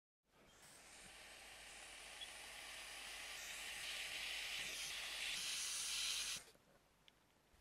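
JBC hot-air rework station blowing a steady hiss of hot air over a surface-mount chip to reflow its solder onto the board. The hiss grows gradually louder and then cuts off suddenly about six seconds in.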